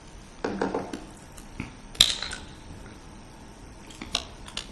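A small plastic water bottle handled and drunk from, with a sharp click about two seconds in and a few lighter clicks near the end. A brief throat-clearing sound comes about half a second in.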